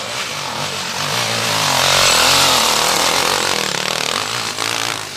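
Enduro motorcycle engine revving hard under load as the bike climbs a steep, muddy slope. Its pitch wavers with the throttle, and it grows louder to a peak about two seconds in, then eases off slightly.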